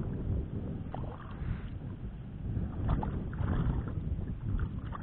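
Wind buffeting the microphone and water lapping against a kayak hull, with a few short splashes from a hooked mullet being played at the surface beside the bow.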